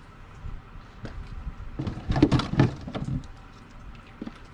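Irregular clicks, clinks and knocks of hand tools and parts being worked by hand in a car's engine bay, loudest in a cluster from about two to three seconds in.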